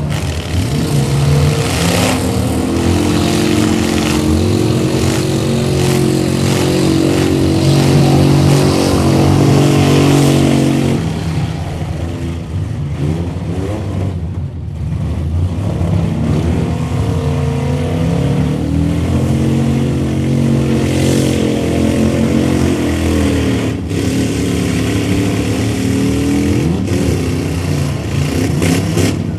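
Several demolition derby trucks' engines revving hard, rising and falling in pitch as they push and spin their wheels in deep mud, easing off briefly about halfway through.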